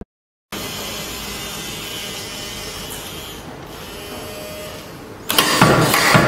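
Motorised robotic arm whirring as it moves, a steady mechanical hum with a faint whine, starting about half a second in. About five seconds in it gives way to a louder run of sharp knocks and clatter.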